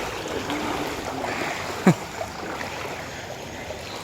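Floodwater sloshing and trickling steadily, with a short sharp sound about two seconds in that falls quickly in pitch.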